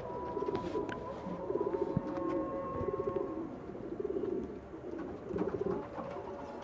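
Domestic pigeons cooing, one coo after another with several birds overlapping.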